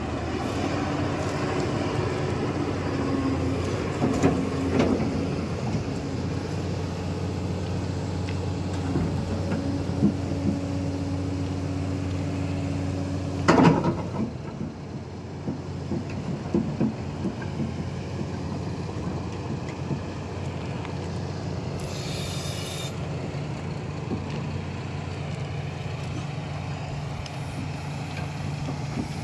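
Hydraulic excavator's diesel engine running steadily, with a few clanks and one loud knock about halfway through. A short hiss comes a little later.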